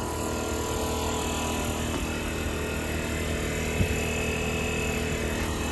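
Large 1-inch-drive air impact wrench (SI-3850GL) running free with no load, a steady whir, with one short knock nearly four seconds in.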